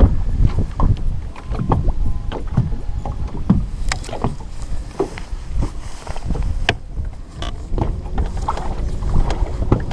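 Water lapping and slapping against a small boat's hull, with a steady low wind rumble on the microphone and scattered light knocks and clicks.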